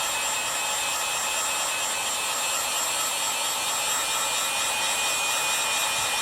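Handheld hot-air dryer blowing steadily with a faint whine, drying a fresh coat of leather dye.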